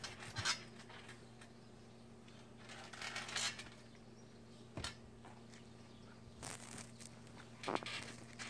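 Faint, scattered soft knocks and rustles as a toddler shifts and sits on a trampoline mat, over a low steady hum.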